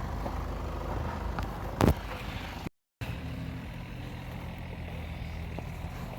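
A vehicle engine running steadily at a low, even pitch, with one sharp knock about two seconds in. The sound drops out completely for a moment near the middle.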